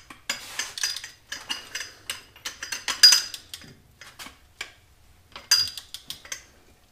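Hand ratchet and socket working bolts in the bottom end of a Chrysler 413 V8 block: a run of irregular metallic clicks and clinks, loudest about three seconds in and again near the end.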